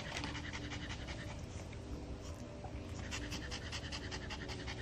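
Maltese dog panting rapidly and rhythmically with its mouth open.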